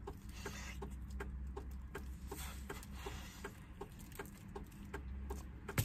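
Close-up wet chewing and lip-smacking of someone eating braised chicken with their hands, about three clicks a second, over a low steady hum.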